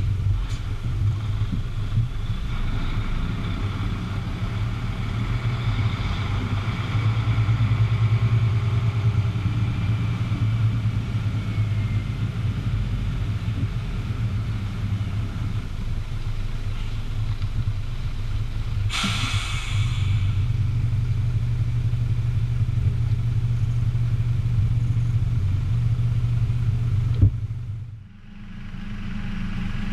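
Heavy truck tractor's diesel engine running steadily at low speed, a deep drone, with a short burst of air hiss about two-thirds of the way through, typical of the truck's air brakes. Near the end the sound dips out and comes back with a different steady tone.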